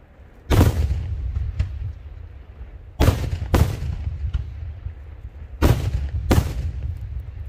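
Daytime aerial fireworks shells bursting overhead: five loud booms, one on its own and then two pairs about half a second apart, each trailing off in an echoing rumble, with a couple of smaller pops between them.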